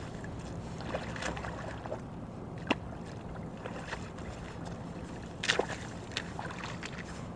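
Rubber boots wading and shifting in shallow river water at a stony bank: water sloshing, with a sharp click under three seconds in and a short cluster of knocks and splashes about five and a half seconds in, over a steady low hum.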